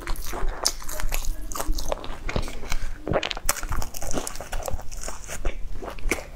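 Close-miked biting and chewing of crusty bread with a soft cream filling: a run of irregular crisp crunches and wet mouth clicks.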